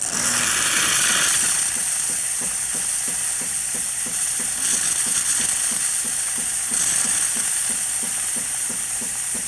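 Jura ENA 3 coffee machine putting out steam: a loud steady hiss that starts abruptly, with a regular low pulsing about three times a second under it. The steam function is working properly after the leak repair.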